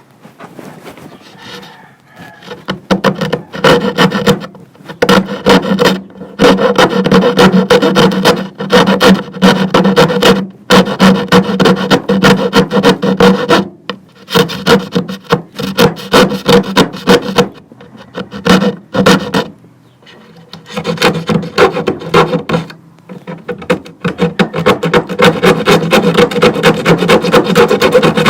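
Power tool cutting plywood, running in several long runs with short pauses between them.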